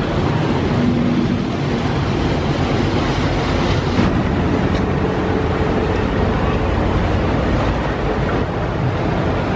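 A boat's engine running steadily under way, a low continuous rumble mixed with the rush of water, with a brief sharp knock about four seconds in.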